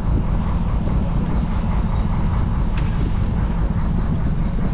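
Fishing boat's engine running with a steady low drone, with wind on the microphone.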